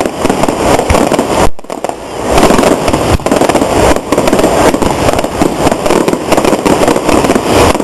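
Fireworks display: a dense, rapid run of loud bangs and crackles, with a brief gap about one and a half seconds in.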